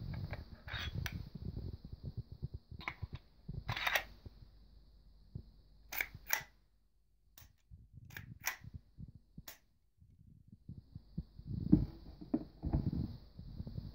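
Sharp metallic clicks and clacks from a Denix Desert Eagle .50 replica pistol as its slide is racked and its action worked, a dozen or so separate clicks with handling rustle. Near the end, a few dull knocks as the gun is laid down on its box.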